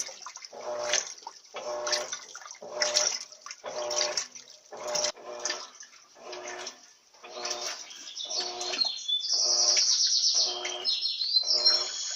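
LT13B Turbo 13 kg washing machine agitating its load, a rhythmic swish of water with a motor hum about once a second. Birds chirp on top from around nine seconds in.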